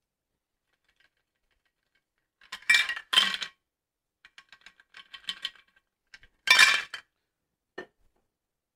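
Ice clinking and rattling in a metal cocktail shaker tin as the drink is double strained through a fine mesh strainer, in short sharp bursts: two loud ones about two and a half to three and a half seconds in, a few light ticks after, and another loud burst about six and a half seconds in. A short, duller knock follows near the end.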